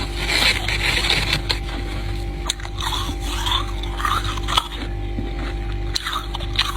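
Ice being bitten and chewed close to the microphone: a loud crunching bite, then a run of separate crunchy chews with a few sharp cracks.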